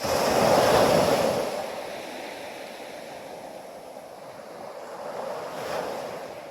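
Ocean waves washing in: a loud surge that starts abruptly and peaks about a second in, then slowly eases, with a second, smaller swell near the end.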